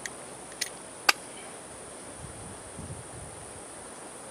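Two sharp metal clicks, about half a second and a second in, from vise-grip locking pliers being clamped onto a screw-in gate hinge pin, over a steady high insect hum.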